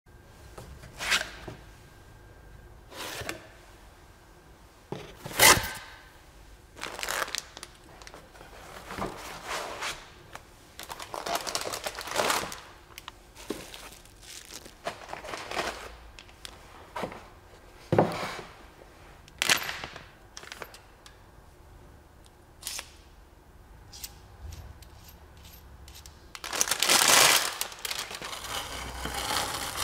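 Packaging being handled during an unboxing: a cardboard box opened and foam packing and wrapping rustling and crinkling, broken by scattered sharp clicks and knocks as parts are lifted out and set down. The longest, loudest rustle comes near the end.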